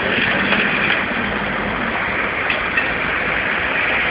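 Steady rumble and hiss of a vehicle engine idling in the street, with a faint low hum that fades out about halfway through.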